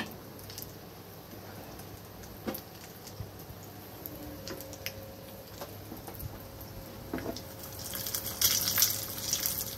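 Vermicelli payasam simmering in a pan with a quiet bubbling and a few faint clicks, then cashews frying in ghee in a small pan, a crackling sizzle that grows louder over the last two seconds.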